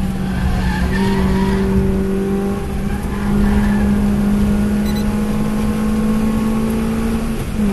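2014 Suzuki Swift Sport's 1.6-litre four-cylinder engine with aftermarket headers and cat-back exhaust, pulling hard at a steady pitch that climbs slightly, heard from inside the cabin with road and wind noise. The note wavers briefly near the end.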